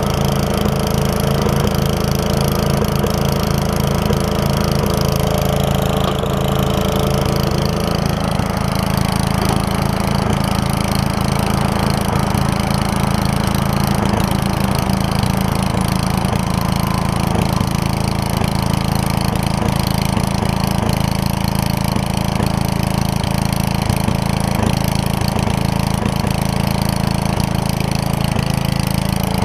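Gravely 5665 walk-behind tractor's Kohler engine running steadily under its own power, now on a new fuel pump that has cured the carburetor flooding.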